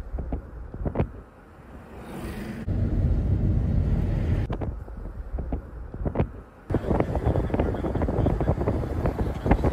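Wind buffeting the microphone over the rumble of a moving car on the road. The buffeting turns suddenly louder and more crackly about seven seconds in.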